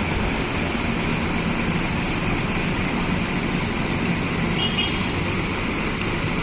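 Diesel engines of intercity coaches idling: a steady low rumble.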